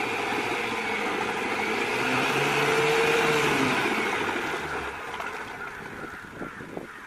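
Boat engine, a Honda Activa scooter's single-cylinder four-stroke motor, running as the boat passes: it grows louder to a peak about three seconds in, then fades away.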